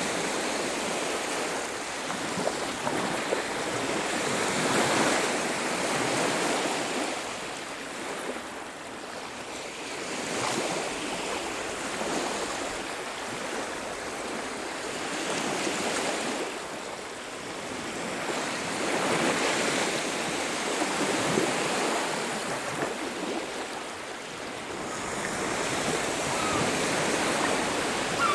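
Ocean surf on a beach: waves breaking and washing in, a steady rushing that swells and falls back every several seconds.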